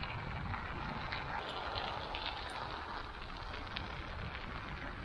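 Bicycle tyres rolling over packed snow: a steady noisy hiss with scattered small crackles, over a low rumble of wind on the microphone.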